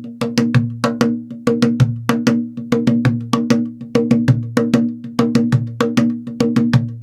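Cajon played in a steady rhythmic groove, about four strokes a second, mixing deep booming bass strokes with sharper, brighter slaps on the wooden box.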